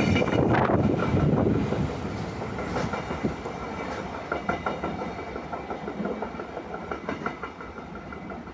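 A passing train hauled by MLW diesel locomotives: its wheels clatter over the rail joints, fading steadily as it moves away.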